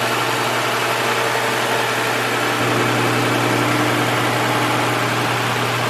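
A car engine running steadily, with a constant low hum under a broad even noise.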